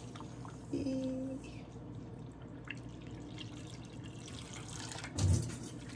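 Water dripping into a large aluminium stockpot of hot hair-dye water, with one louder splash about five seconds in.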